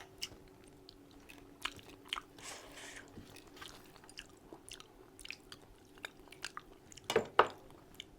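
Close-up chewing of mutton curry: wet mouth clicks and smacks scattered irregularly, with two louder smacks about seven seconds in.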